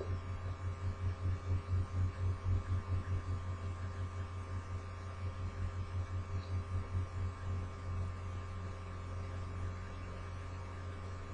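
Low steady electrical hum that pulses about four times a second, with a faint thin whine above it.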